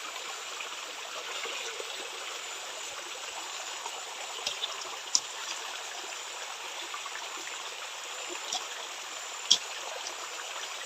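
Small river flowing, a steady rush of water, with a few short sharp clicks around the middle and near the end.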